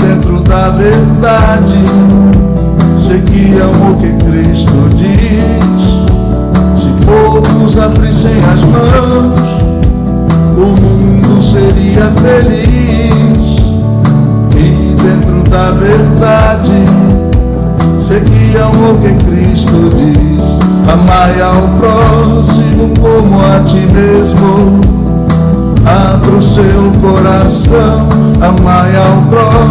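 A song playing: a singing voice over instruments with a steady beat.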